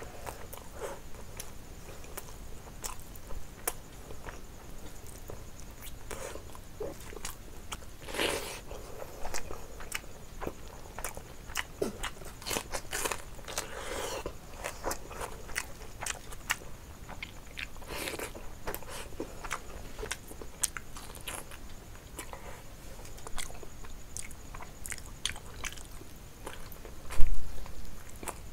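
Close-miked eating: biting into a fried chicken drumstick and chewing, with wet mouth smacks and small crunching clicks. A low thump near the end is the loudest sound.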